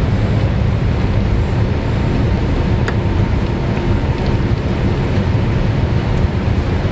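Cabin noise of a Boeing 787-8 rolling along the runway after touchdown: a loud, steady rumble of its GEnx engines and wheels on the runway, with a faint steady whine. A short click sounds about three seconds in.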